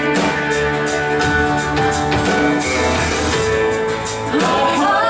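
Worship band playing an instrumental passage between sung lines, with guitar and drum kit over sustained chords; singing comes back in near the end.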